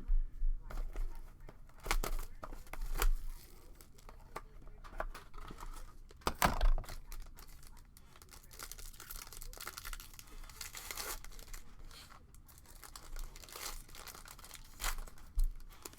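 Sealed trading-card boxes being opened by hand: packaging tearing and crinkling in irregular bursts, with sharp clicks and rustles, loudest about six and a half seconds in.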